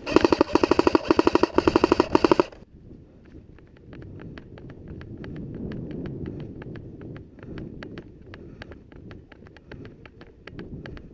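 An airsoft electric rifle fires one rapid full-auto burst for about two and a half seconds, then stops abruptly. After that come quieter, steady running footsteps on leaf litter, with light regular ticks.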